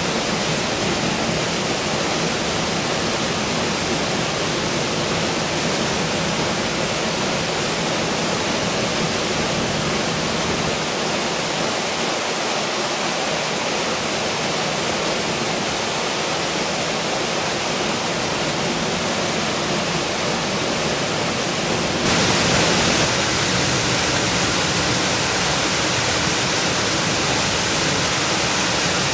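Fast-flowing river water rushing over rocks in white water: a steady, unbroken roar. About two-thirds of the way through it steps up slightly louder and hissier.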